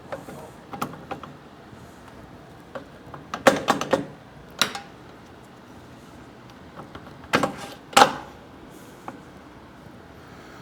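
Scattered metallic clinks and knocks as the swing-arm pivot shaft bolt and nearby parts are handled and fitted on a motorcycle frame. There is a quick run of clinks about three and a half seconds in, and two louder knocks near the eight-second mark.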